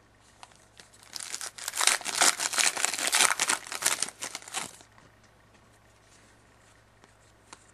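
Foil wrapper of a hockey card pack being torn open and crinkled in the hands: a dense crackling run that starts about a second in and stops a little before the five-second mark.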